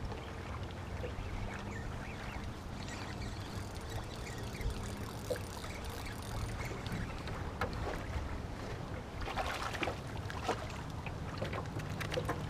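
Water lapping against a small aluminium boat's hull over a low steady rumble, with scattered small clicks and splashes that crowd together about nine to ten seconds in.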